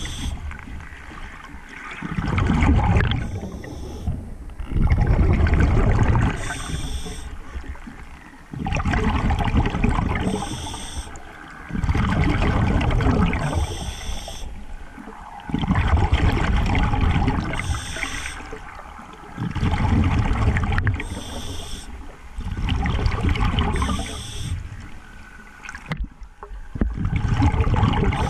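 Scuba diver breathing through a regulator underwater: about every three to four seconds a low rumble of exhaled bubbles, several of the breaths with a brief hiss from the regulator.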